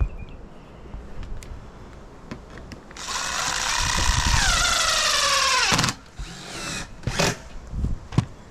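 Power drill-driver running for about three seconds, its pitch falling sharply as it loads up, then stopping abruptly. A short second burst follows about a second later.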